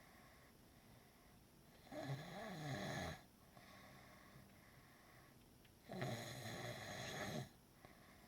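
Snoring: two loud snores, each over a second long, about four seconds apart.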